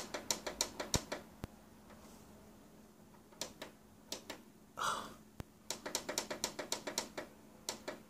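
Rapid clicking of an Insignia LCD TV's control buttons being pressed over and over to step through the input menu: a quick run of clicks, about five a second, at the start, a few single clicks, then another run from just before six seconds. A short, louder rustling thump comes about five seconds in.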